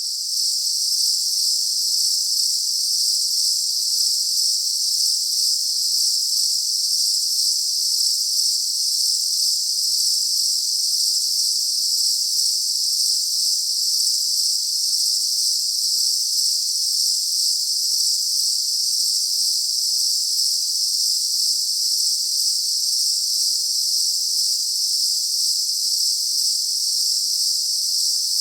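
Dense chorus of insects outdoors, a steady high-pitched shrill buzz that never breaks or changes.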